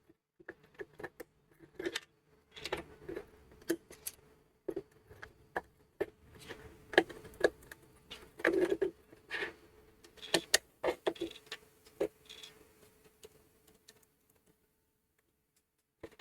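Irregular clicks, taps and scrapes of small plastic parts and tools being handled and pried apart while the air quality monitor is taken to pieces, with a faint steady hum underneath.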